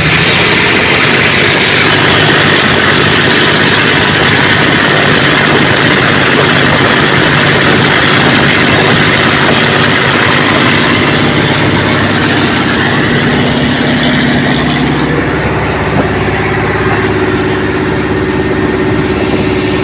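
Hino HO7D six-cylinder diesel engine of a river taxi boat running hard, loud and steady. About fifteen seconds in, the high hiss drops away and the engine's tone shifts.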